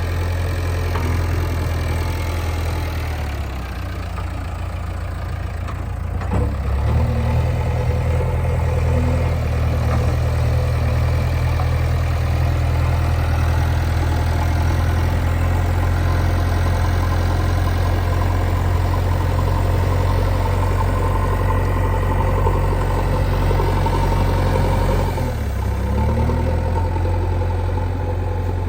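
Heavy diesel engine running under changing load. Its pitch drops about three seconds in and revs back up at around six seconds, then holds steady; near the end it dips briefly and picks up again.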